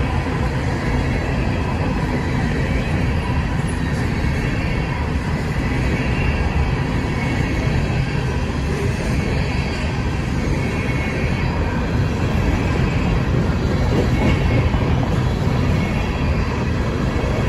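Empty coal hopper cars rolling past at speed, a steady, loud rumble of wheels on rail.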